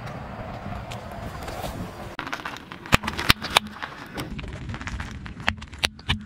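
A car tyre rolling slowly over rough asphalt, then several sharp pops as it bursts laundry detergent pods, three close together about three seconds in and a few more snaps near the end.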